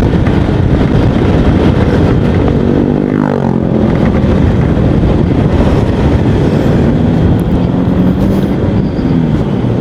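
Yamaha XMAX 250 scooter's single-cylinder engine running on the move. About three seconds in, the engine note drops in pitch, then holds steady.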